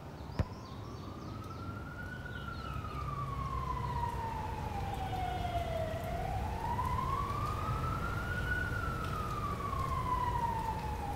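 A siren wailing, its pitch rising and falling slowly twice over a low steady rumble.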